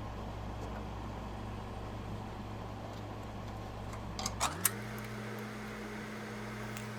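A steady machine hum. A little past halfway there are a few sharp clicks, and the hum slides up to a higher pitch and stays there.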